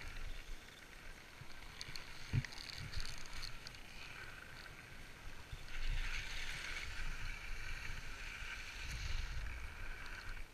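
Skis sliding and scraping over packed snow, a steady hiss that grows louder about six seconds in, with wind rumbling on the microphone. A single knock about two seconds in.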